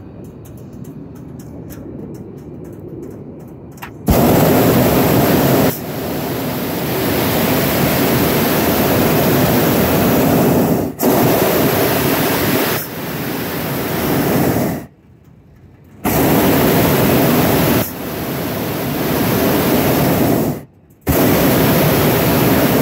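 Hot-air balloon's propane burner firing in long, loud blasts of hissing noise, starting about four seconds in and cutting off briefly twice, near the middle and near the end. It is heating the envelope as the balloon climbs after lift-off.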